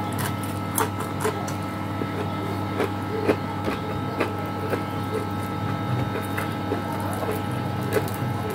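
Close-up eating sounds: chewing boiled string beans and fried fish, with scattered small clicks and crunches. A steady mechanical hum runs underneath.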